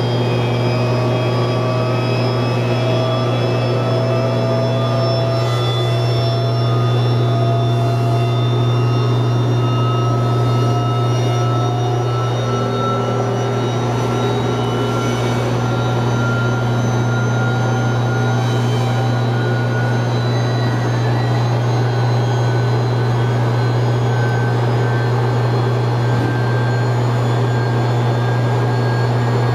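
Large three-phase AC induction motor running unloaded, a loud steady electrical hum under several whining tones that slowly rise in pitch.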